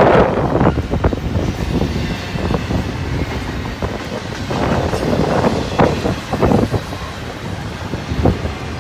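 Double-stack intermodal freight train's well cars rolling past: a steady rumble of steel wheels on rail, broken by short irregular knocks and clanks from the cars, clustered near the start, in the middle and near the end.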